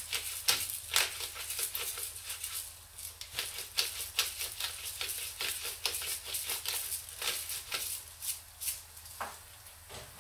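Hand-twisted metal grinder mill grinding, a fast, irregular crunchy clicking from its grinding mechanism that stops about nine seconds in.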